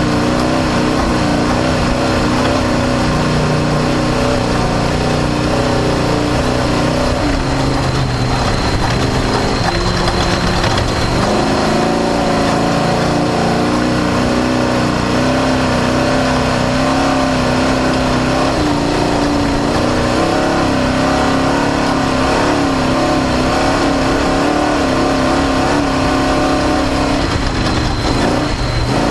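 Off-road desert race car's engine running hard, heard onboard, its pitch stepping up and down with throttle and gear changes several times, over a constant noisy din from the car pounding across rough, square-edged terrain.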